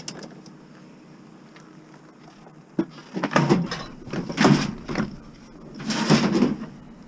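A click, then three separate rough scraping slides of about half a second each as heavy scrap is shifted and dragged.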